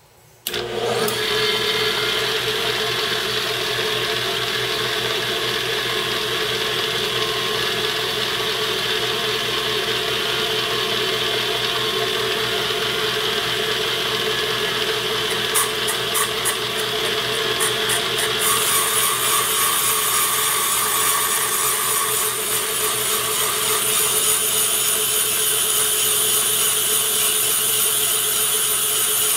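Benchtop valve refacing machine switched on, its electric motor and grinding stone starting suddenly and running with a steady hum and high whine. A short run of quick ticks comes about 15 seconds in, and a higher hiss joins about 18 seconds in and continues.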